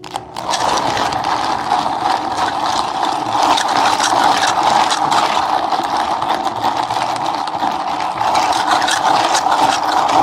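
An electric motor of a drink-making appliance running loud and steady with a rattle, starting suddenly at the beginning.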